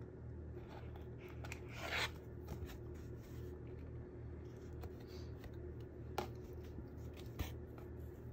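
Faint rustling and scraping of a needle and thread being drawn through a fabric journal spine and canvas cover, with a louder rustle about two seconds in and two light clicks near the end as the journal is handled. A steady low hum sits underneath.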